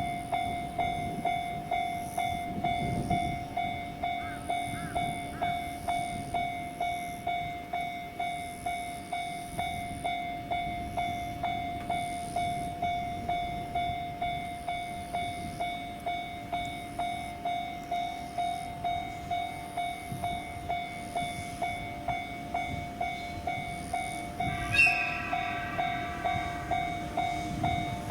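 Japanese railway level-crossing warning bell ringing at a steady, even rhythm of a couple of strokes a second, with the approaching train's horn sounding once, briefly, near the end.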